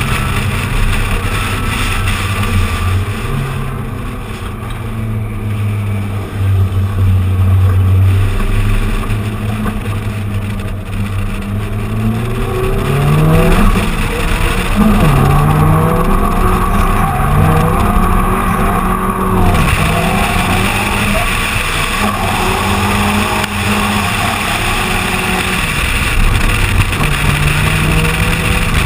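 Drift car's engine heard from a camera on the car's side, running fairly steadily at first, then revving up and falling back again and again through the second half as the car is driven sideways in a drift.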